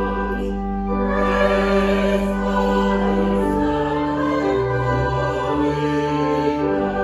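Choral music: a choir singing slow, held chords with accompaniment, the bass note changing a few times.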